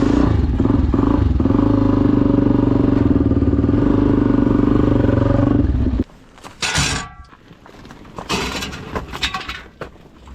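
Honda XR250R's single-cylinder four-stroke engine running steadily, then cutting off suddenly about six seconds in, followed by a few scrapes and clattering knocks.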